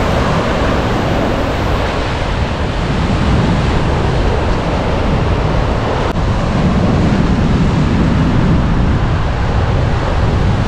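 Ocean surf breaking on the beach, with wind buffeting the microphone: a steady, loud rush of noise heaviest in the low end.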